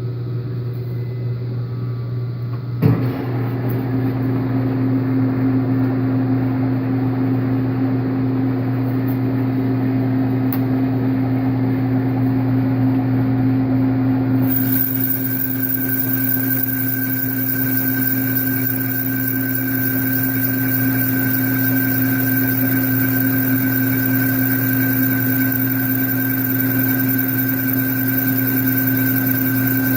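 Metal lathe running steadily while boring a bushing on a light finishing cut of about five thousandths of an inch. A click about three seconds in is followed by a slightly louder running note. About halfway through, a higher steady whine and a hiss join in.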